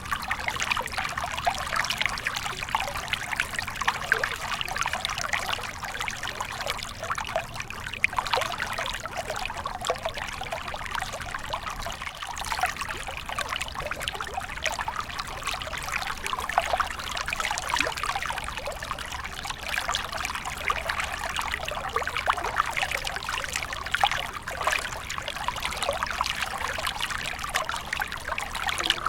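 A small stream flowing and trickling steadily, with fine bubbling and splashing and no pauses.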